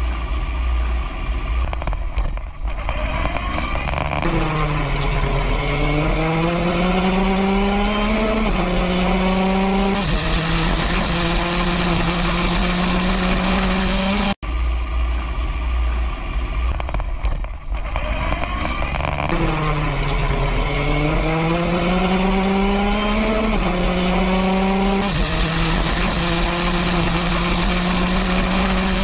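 Open-wheel formula race car engine heard from on board, accelerating: its pitch climbs through a couple of upshifts and then holds steady at speed, over a heavy low rumble. The same run plays twice, restarting about halfway through.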